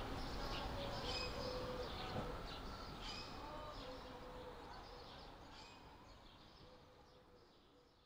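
Birds chirping over a soft background hiss, the whole sound fading out steadily from about two seconds in.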